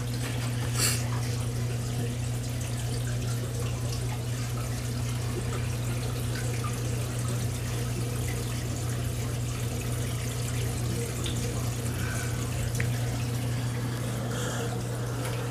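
Reef aquarium running: water trickling and splashing over a steady low hum from its equipment.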